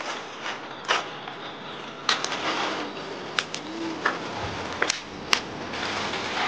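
A large wok of boiling water hissing steadily, with several short sharp clicks and knocks as its metal lid is lifted off and greens are handled.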